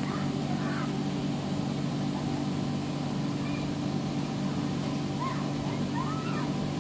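Steady low hum of the electric air blower that keeps an inflatable bouncy slide inflated. A few short, faint high calls break in over it near the end.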